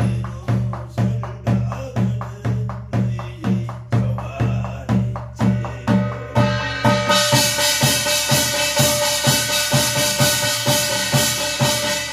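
Korean barrel drum (buk) beaten in a steady rhythm of about two strokes a second. About six seconds in, a bright metallic ringing from struck metal percussion joins, and the strokes quicken.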